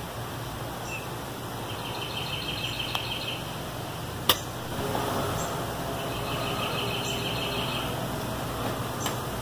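Two short runs of rapid, high chirping from a bird, about two seconds and six seconds in, over a steady background hum. A single sharp click about four seconds in is the loudest sound.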